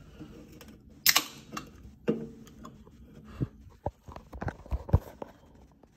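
Handling noise from a handheld camera being moved over a desk: soft knocks, clicks and rustles, with a short sharp hiss about a second in.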